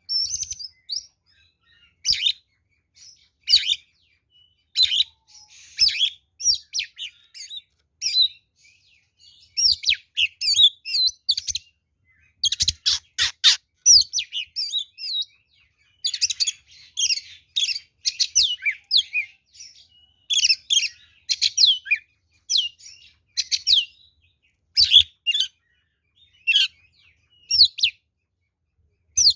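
Oriental magpie-robin (kacer) singing loudly in full, aggressive song: a long run of short, quick, varied high whistled phrases broken by brief pauses, with a burst of rapid harsher notes about halfway through.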